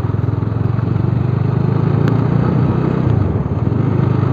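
Bajaj Dominar 400's single-cylinder engine running steadily as the bike is ridden along, heard from on the motorcycle. The engine note dips briefly about three seconds in, then picks up again.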